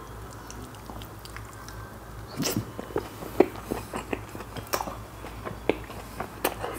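Chewing of a big mouthful of chicken burger dipped in butter chicken gravy, with irregular mouth clicks and smacks that come faster and louder from about two seconds in.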